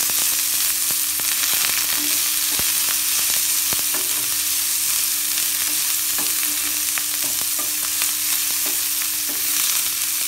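Sliced shallots, dry red chillies and curry leaves sizzling in ghee in a nonstick frying pan, stirred with a spatula that scrapes and taps against the pan at irregular moments. The shallots are being sauteed with a little salt until they turn golden.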